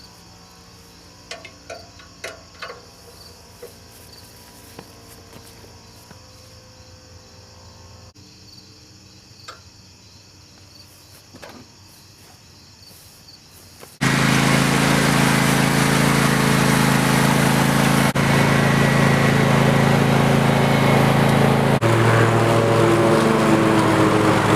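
A few faint clicks and knocks, then, about 14 seconds in, a lawn tractor's engine cuts in suddenly and runs loud and steady as it pulls a small disc harrow.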